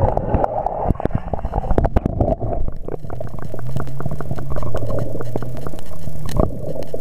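Water bubbling and gurgling around a drone that has crashed into water, heard muffled from under the surface, with many small clicks and knocks. A low steady hum sets in about three seconds in.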